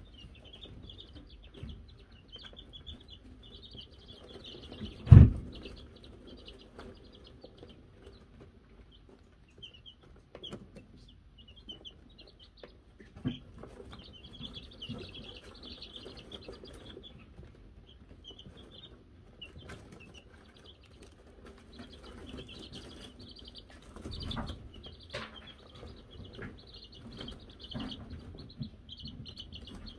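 Wyandotte chicks peeping, many short high peeps in busy clusters. A sharp thump about five seconds in is the loudest sound, with a few softer knocks later.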